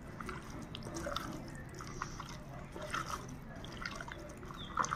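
A hand mixing raw boneless chicken pieces with spice powders and ginger-garlic paste in a glass bowl: soft, wet squelching with scattered small clicks.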